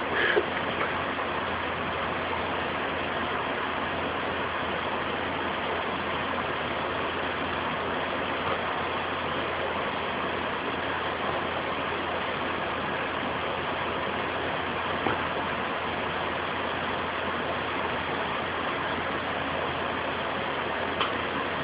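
A steady, even background noise with a low hum, unchanging throughout. At the very start, the last short burst of a basset hound's coughing fit.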